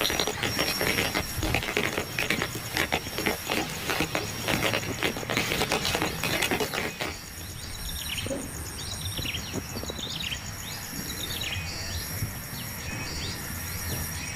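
Rain pattering densely for the first half, then a bird giving a string of short, falling chirps, about one a second, over a thinner patter. A thin steady high tone runs underneath.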